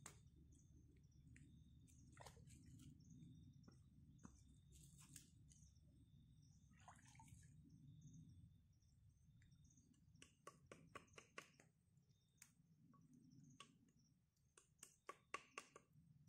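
Near silence: faint scattered clicks and taps over a low steady rumble, with a quick run of clicks about ten seconds in and another near the end.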